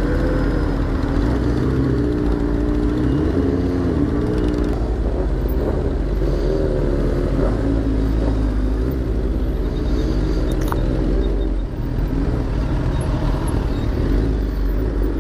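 Sport-bike engines running in slow city traffic, heard from on board one of the bikes. The engine pitch rises and falls with the throttle over a steady low rumble.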